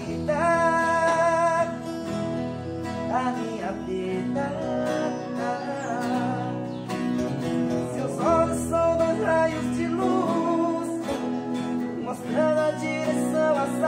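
Several acoustic guitars strummed and picked together, with a man's voice singing long held notes over them.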